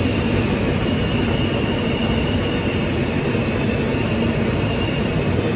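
R160 subway car running at speed through a tunnel, heard from inside the car: a steady rumble of wheels on rail with a faint high whine above it.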